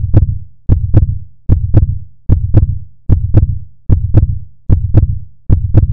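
Outro sound of deep, heartbeat-like double thumps, one pair about every 0.8 seconds, steady and evenly spaced throughout.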